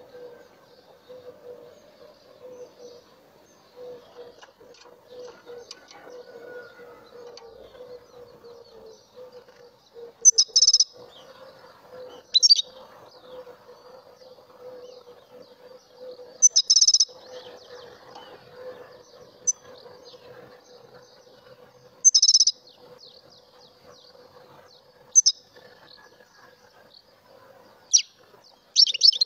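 A caged European goldfinch singing: soft high twittering, broken every few seconds by short, loud, sharp bursts of song, several of them toward the end. A faint steady hum runs underneath.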